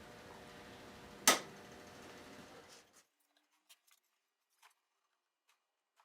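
A single sharp click about a second in, over faint room hum; the room sound then cuts out, leaving only a few faint ticks.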